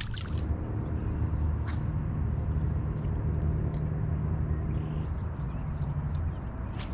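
Low, steady engine rumble of a motor vehicle, building about a second in and easing off near the end, with a few faint ticks over it.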